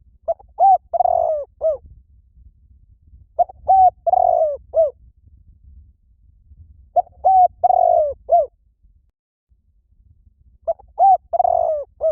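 Spotted dove cooing: four phrases about three and a half seconds apart, each a short run of low coos with a longer, rougher note in the middle.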